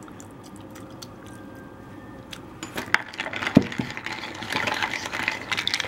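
Liquid poured from a saucepan into a ceramic mug, a faint steady pour, then from about halfway a metal teaspoon stirring and clinking against the mug, with one sharp knock among the clinks.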